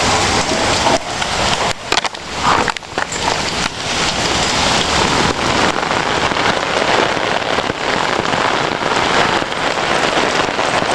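Hailstorm: hail and heavy rain pouring down, a dense steady hiss laced with many sharp little hits. It drops briefly about two to three seconds in.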